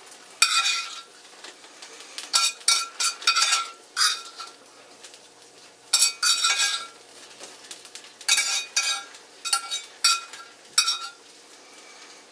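Metal spoon scraping and clinking against a small cast iron skillet as cooked mushrooms are scooped out, in bursts of several quick strokes with short pauses between, each stroke ringing briefly.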